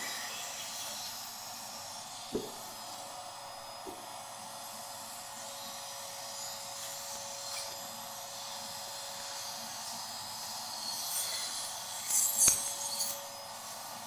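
Vacuum cleaner running steadily with a steady whine, sucking the air out of a Ziploc freezer bag through a narrow 3D-printed nozzle. A sharp knock comes about two seconds in, and the plastic bag crinkles loudly near the end as the zip is pressed shut around the nozzle.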